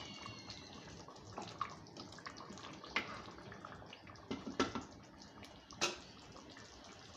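A wooden spoon stirring a thick tomato-and-meat curry in a granite-coated pot, with wet sloshing and a few sharp taps of the spoon against the pot: one about three seconds in, a quick cluster a little after four seconds, and one near six seconds.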